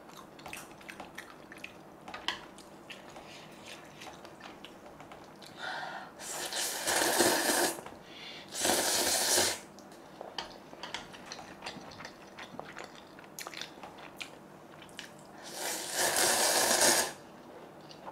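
A person slurping spicy mala instant noodles in three long pulls, the first two close together and the third near the end, with quiet chewing and small mouth clicks between them.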